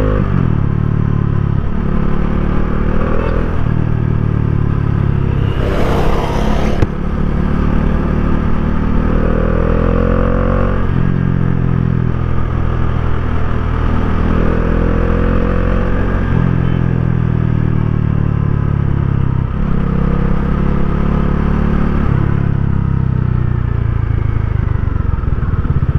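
2019 Bajaj Dominar 400's single-cylinder engine and exhaust pulling under way, its pitch climbing through each gear and dropping back at each upshift, several times over. A brief loud rushing noise comes about six seconds in.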